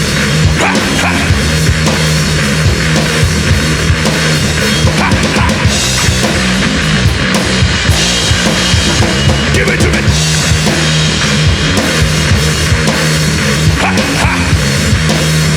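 Hard rock band playing an instrumental stretch of a song without vocals, the drum kit keeping a steady driving beat over a held bass line.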